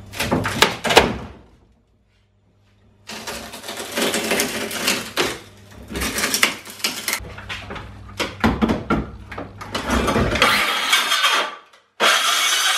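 Rotten wooden floor of an old boat being torn up by hand: irregular cracking, splintering and scraping of broken wood, with a dead gap just after the first second. Near the end a cordless circular saw starts running steadily.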